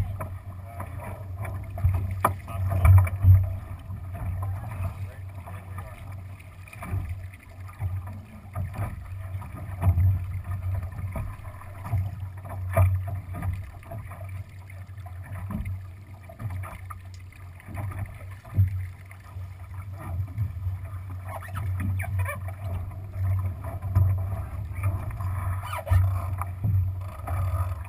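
Water rushing and slapping along the hull of a Lightning sailboat under way, a low rumble that swells and fades unevenly.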